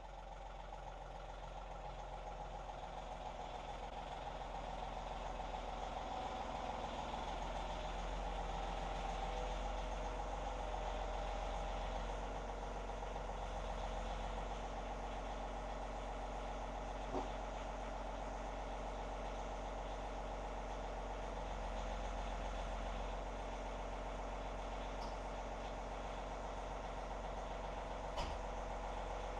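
John Deere compact tractor's diesel engine running as the tractor drives up, growing louder over the first several seconds as it comes close, then running steadily at idle. Two short sharp clicks, one about halfway through and one near the end.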